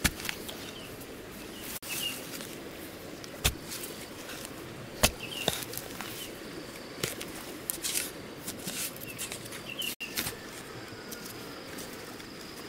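A small hand digging tool chopping into damp soil with a few sharp strikes and scraping, the loosened dirt scattering between them. Short bird chirps repeat in the background.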